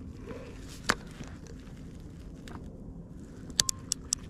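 A few sharp clicks from handling a conventional fishing reel: one about a second in, then a quick run of four or five near the end, over a low steady background hum.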